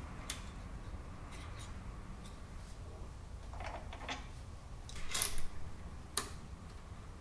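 Metal tools being handled by hand at a small milling machine: scattered light clicks and clinks as the drill comes out of the drill chuck and a tool is taken from a wooden tool rack, with a sharper clatter about five seconds in and a single click a second later. A steady low hum sits underneath.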